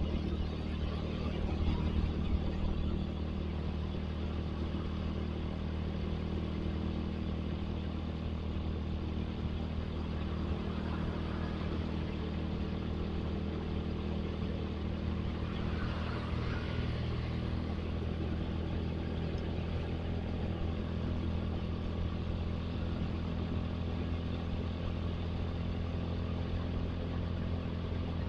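Motorcycle engine running steadily while riding at an even pace, with road and traffic noise around it.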